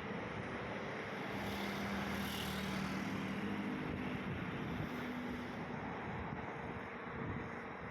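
Motor engines running steadily under a constant broad rumble, with a low hum that shifts slightly in pitch midway.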